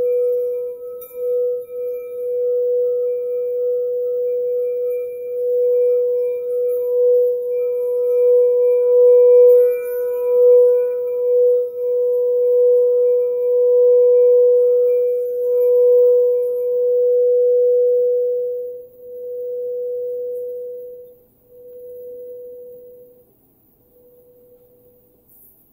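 A singing bowl holds one sustained, ringing note whose loudness swells and wavers. Near the end it dwindles into a few shorter, fainter swells and dies away.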